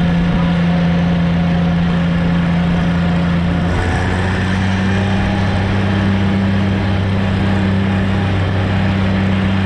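Vintage farm tractor engine running steadily under way, heard close up from on the tractor; the engine note steps up slightly about four seconds in.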